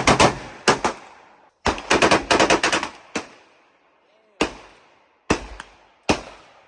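Gunfire on a firing range. A quick burst of shots opens, then a rapid string of about eight shots in just over a second, followed by single shots roughly a second apart, each with a short echoing tail.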